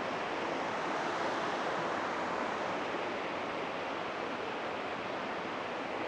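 Steady rush of a small waterfall and the shallow creek cascading over rock below it.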